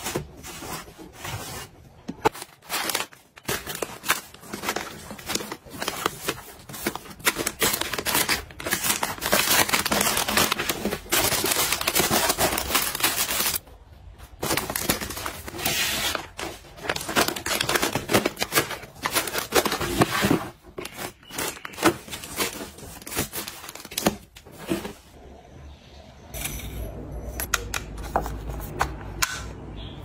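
Clear plastic bags rustling and crinkling as they are handled and packed into a plastic storage bin, among clicks and knocks of plastic containers being moved and set down. A low steady hum comes in near the end.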